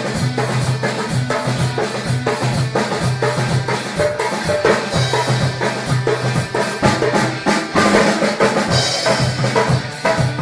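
Background music with a steady drum beat and a strong bass line.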